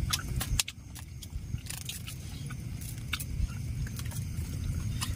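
Close-up eating sounds: scattered small clicks and clinks of food and utensils over a steady low rumble, with a sharper knock right at the start.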